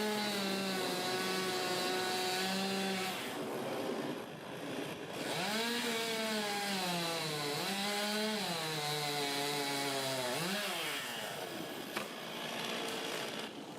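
Chainsaw engine running at high speed. It drops off briefly about three seconds in, then revs up and down several times, and runs quieter near the end.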